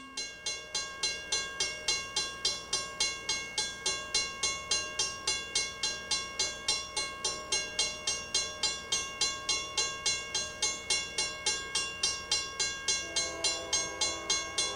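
Railway grade-crossing bell ringing in a steady rapid rhythm, about three strikes a second, warning of an approaching train. Near the end a lower steady tone joins in, likely the oncoming locomotive's horn.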